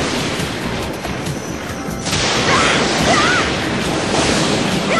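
Cartoon sound effects: a loud, continuous rushing and rumbling noise over background music, brighter from about two seconds in, with a couple of short wavering tones about halfway through.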